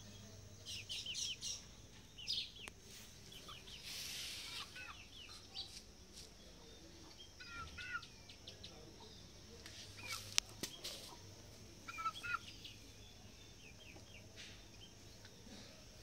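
Young aseel chickens clucking and chirping in short, scattered bursts of high calls, with a few sharp clicks about two-thirds of the way through.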